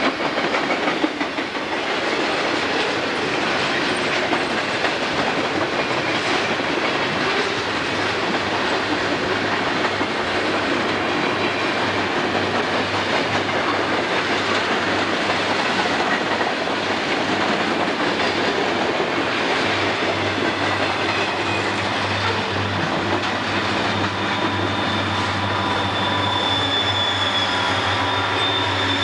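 Conrail freight cars rolling past downgrade, with steady rumble and clickety-clack of wheels over rail joints. From about twenty seconds in, the train's rear-end helper locomotives, SD40-2s in dynamic braking, draw near and add a steady low drone and a high whine that grow louder toward the end.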